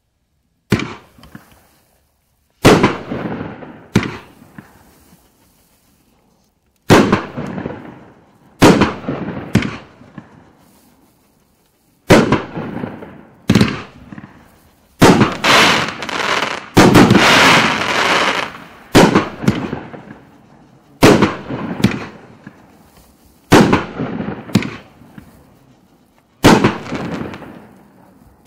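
A 500-gram, 18-shot cake firework firing: a sharp bang every one to three seconds, each trailing off into a fading tail. About halfway through the shots come closer together, with a dense stretch of crackling.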